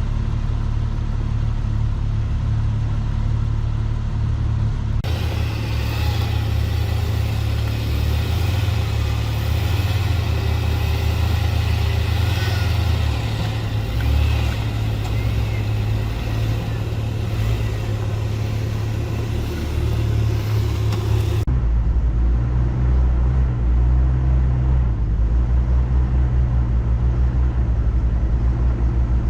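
Off-road vehicle's engine running steadily at low revs, heavy in the low end. The sound changes abruptly about five seconds in and again about twenty-one seconds in.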